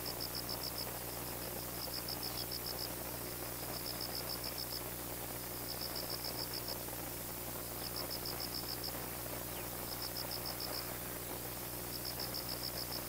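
A cricket chirping in high-pitched trills of rapid pulses, each lasting about half a second to a second and coming back roughly every two seconds, over a steady low hum.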